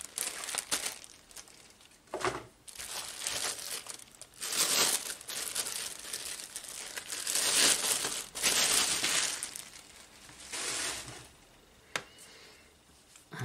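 Clear plastic wrapping crinkling and rustling in irregular bursts as gloved hands pull it off a cordless jigsaw. A single sharp click near the end.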